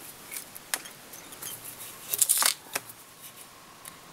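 A few small, sharp clicks and rustles from fly-tying thread and tools being handled at the vise, with a small cluster of clicks a little past two seconds in.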